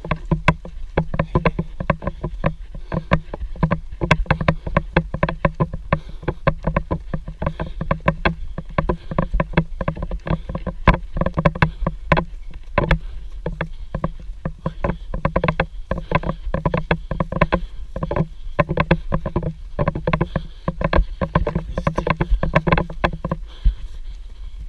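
A trail runner's rapid, rhythmic footfalls on a dry dirt path, heard as a quick run of thuds and knocks with the jostling of the runner's camera at each stride.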